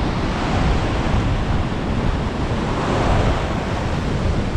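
Ocean surf breaking and whitewater rushing around the shallows, with wind buffeting the microphone as a low rumble. The rush of water swells about three seconds in.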